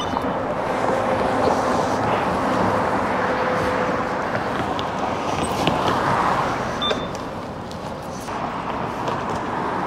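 City street traffic noise, a steady rushing hum of passing cars and buses.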